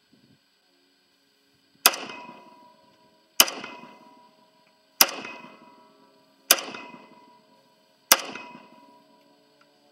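Zastava M92 PAP 7.62×39mm AK pistol with a muzzle device fired five times in semi-auto, about one and a half seconds apart. Each sharp report is followed by an echo that dies away within about a second.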